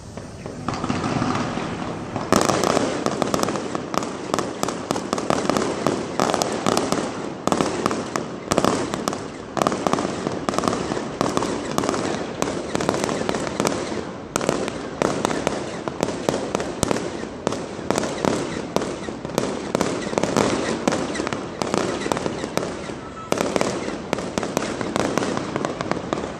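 Fireworks going off in a dense, continuous barrage of crackling pops. It picks up just after the start and gets louder about two seconds in.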